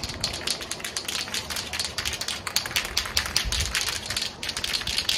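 Aerosol spray paint can being shaken, its mixing ball rattling inside in a fast, steady run of sharp clicks.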